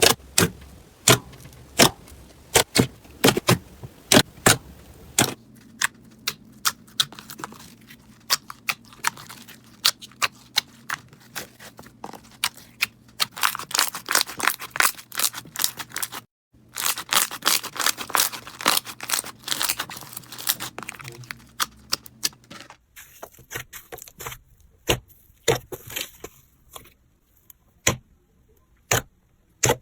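Slime being pressed and squeezed by hand, giving a run of sharp clicks and crackling pops as air pockets burst. The crackling is densest in the middle, and the sound changes abruptly a few times.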